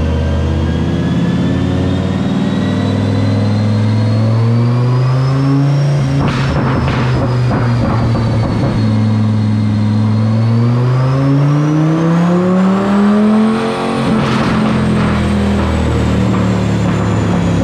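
Dodge Viper GTS's 8.4-litre V10 on a chassis dyno, revving up under load twice and then lifting off. The lift-offs come about six seconds in and again near fourteen seconds, each followed by a few sharp pops from the exhaust of the new deceleration burble tune. A high thin whine rises and falls with speed.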